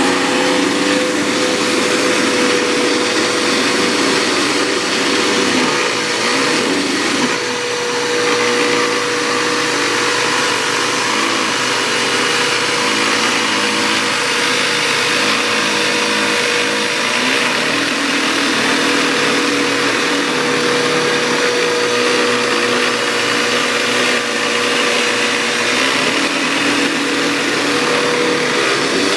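Upright vacuum cleaner running steadily on carpet, a constant motor whine over a strong rush of air, with a brief dip about seven seconds in.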